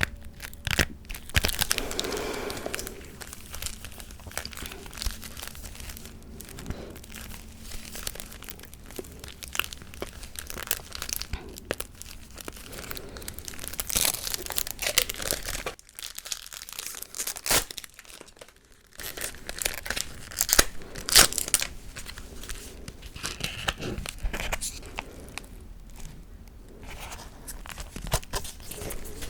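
Close-miked ASMR tapping and crinkling: dense, irregular sharp clicks and papery rustles, with a quieter stretch a little past the middle.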